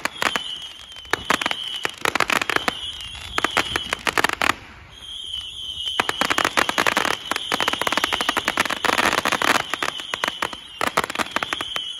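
Fireworks going off close by: dense, rapid crackling and popping, with a short lull about four and a half seconds in. A high steady tone runs underneath.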